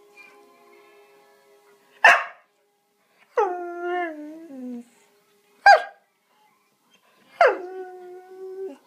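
A dog vocalising to its owner: a short sharp bark, then a long drawn-out call that falls in pitch, a second short bark, and near the end another long call held on one note.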